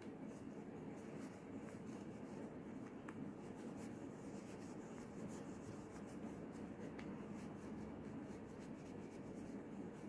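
Faint rustling and scratching of polyester wadding and cotton fabric as the wadding is pushed into a sewn toy's tail with a stuffing tool, in small irregular strokes over a steady low room hum.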